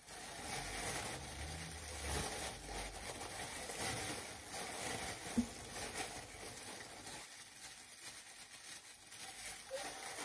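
Faint rustling of plastic-gloved hands working hair dye through hair, with a low rumble in the first few seconds.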